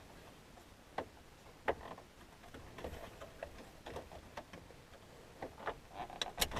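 Scattered light clicks and knocks of hard plastic as a truck's stock stereo head unit is worked loose and pulled out of its dash opening, with a cluster of sharper clicks near the end.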